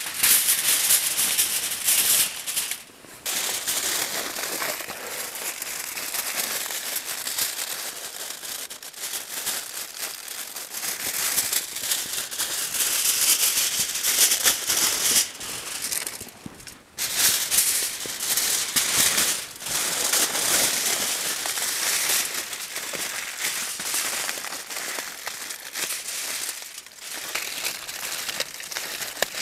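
Continuous crinkling and rustling, with brief drops about three seconds in and about seventeen seconds in.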